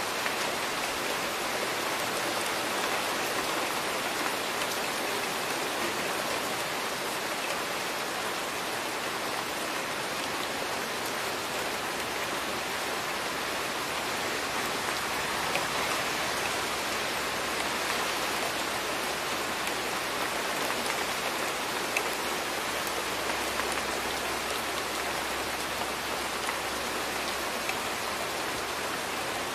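Steady rain falling, a light drizzle, with a few single drops ticking a little louder now and then.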